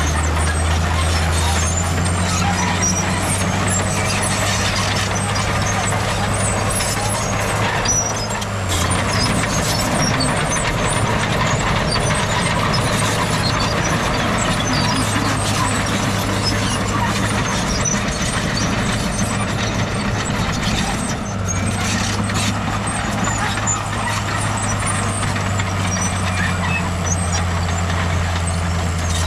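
Heavy diesel earthmoving machinery running steadily, its low engine hum changing note about a third of the way through and settling back about two-thirds through.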